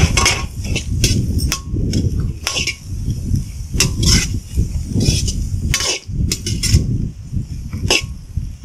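Steel ladle scraping and clanking against an iron kadai as shredded cabbage and vegetables are tossed and stir-fried, with irregular sharp clinks over a steady low rumble.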